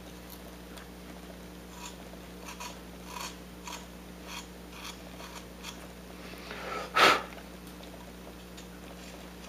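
Carving knife shaving small cuts from wood, a series of short, light scraping strokes about every half second, with one louder, longer sound about seven seconds in.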